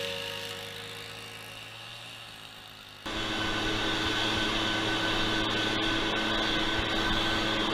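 Background music fading out, then, about three seconds in, an abrupt cut to an Echo PB-580 two-stroke backpack leaf blower running steadily at constant speed, blowing grass clippings off concrete.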